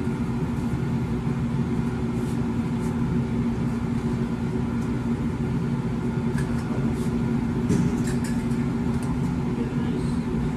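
Steady mechanical hum of commercial kitchen equipment running, with a few light clicks and scrapes of a utensil against a pan of fries on the range.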